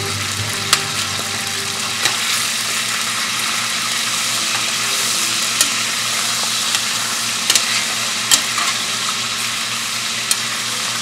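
Diced raw chicken breast frying in hot vegetable oil in a stainless steel skillet, with a steady sizzle. Now and then a slotted metal spatula clicks and scrapes against the pan as it stirs the pieces.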